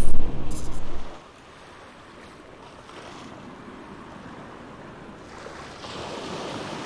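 A loud low droning tone that cuts off about a second in, followed by a soft, steady rushing noise that swells slightly near the end.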